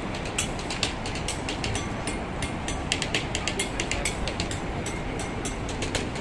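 Steady low rumble with rapid, irregular clicking, several clicks a second, from a handheld camera being carried while walking along a paved promenade.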